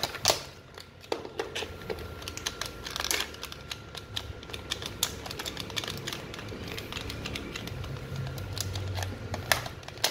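Irregular plastic clicks and knocks as a battery pack is fitted into the handle of a used 9.6 V cordless drill and the drill is handled, over a faint low hum that swells about eight seconds in.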